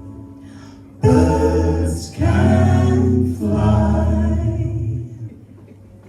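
Voices singing the song's closing line, likely "birds can fly", as a cappella harmony in three long held notes. The last note fades out about five seconds in.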